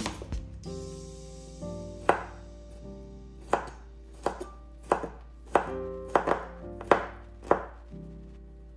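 Chef's knife chopping garlic cloves on a bamboo cutting board: a series of sharp knocks of the blade against the wood, roughly one every half second to second, stopping shortly before the end.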